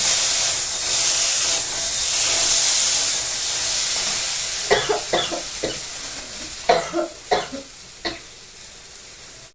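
Food frying in hot oil in a pan, sizzling loudly and slowly dying down. A few short coughs come about five and seven seconds in, from the sting of the spicy frying.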